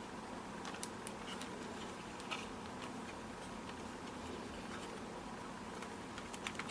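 A few scattered light clicks and taps as a hard drive is handled and seated in a laptop's drive bay, over a steady low background hum.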